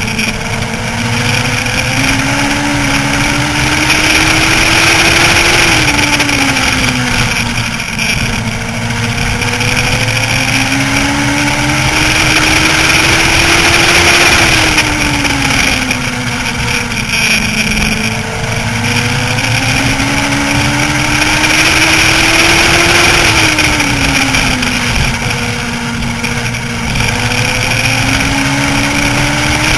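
Legends race car's Yamaha motorcycle engine at racing speed, heard on board. Its revs climb steadily and then fall off sharply three times, about nine seconds apart.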